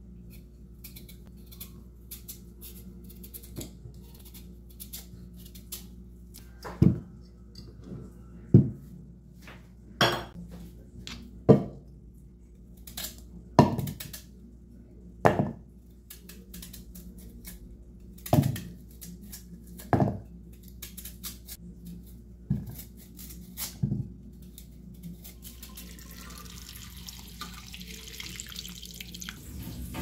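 Sweet potatoes being peeled with a kitchen knife, in light scraping clicks. Then chunks are cut off and dropped one at a time into a pot of water, making about ten sharp splashing knocks 1.5 to 2 seconds apart. A soft steady hiss comes in near the end.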